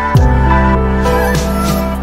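Electronic background music with sustained synth tones over a heavy bass, with a sharp downward bass sweep shortly after the start and another about a second later.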